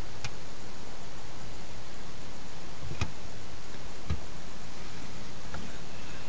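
A few small, sharp ticks, seconds apart, over a steady hiss: a hamster shifting inside a clear plastic tube, its claws ticking on the plastic.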